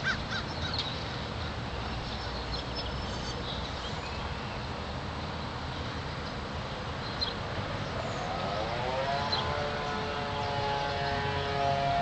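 Outdoor ambience: a steady rush of wind or distant traffic with a few short bird calls, and about eight seconds in a long, drawn-out tone that rises and then holds steady.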